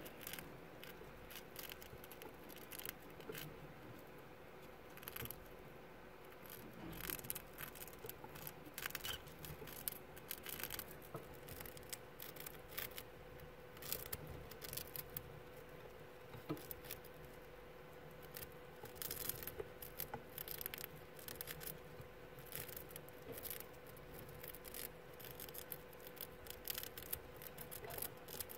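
Pet mice nibbling a cheese puff held in fingers: many small, irregular crunching clicks, faint throughout.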